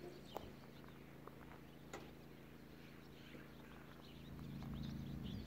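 Faint steady low hum with a few light ticks, growing louder and fuller near the end.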